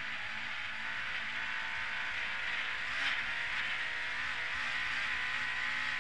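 Rally car heard from inside the cabin at speed on a snowy gravel stage: the engine pulling steadily under the hiss of tyres on snow, gradually getting louder, with a short thump about three seconds in.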